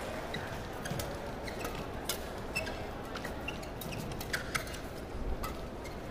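Badminton rally: repeated sharp racket strikes on the shuttlecock, mixed with short squeaks of players' shoes on the court floor, over a faint arena background.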